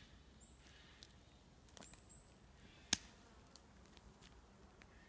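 Dry twigs and dead branches snapping underfoot on a forest floor: a few scattered cracks, with one sharper snap about three seconds in.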